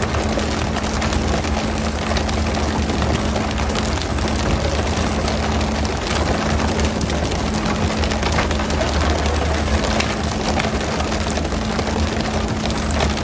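Fishing boat's engine running steadily, a low even hum under a constant rushing noise of water and wind.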